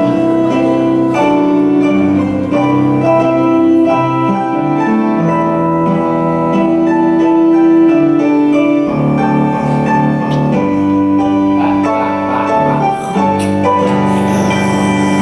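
Keyboard music playing slow, sustained chords that change every second or two.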